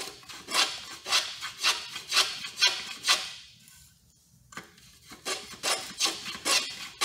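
Vintage wooden Ohio moulding plane, reworked into a rabbet plane, cutting shavings in quick short strokes about two a second, each a brief rasping hiss of the iron through the wood. The strokes stop for about a second just past the middle, then go on.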